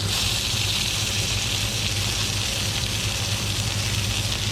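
Trout fillets frying in hot oil in a pan, a steady even sizzle, with a low steady hum underneath.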